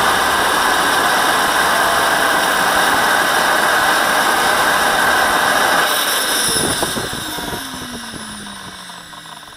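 Model jet's JetCat turbine running steadily with a loud rush and high whine. About six seconds in it shuts down, and the sound fades while the whine falls in pitch as the turbine spins down.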